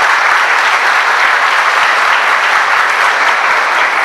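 A congregation applauding steadily after a speaker thanks them.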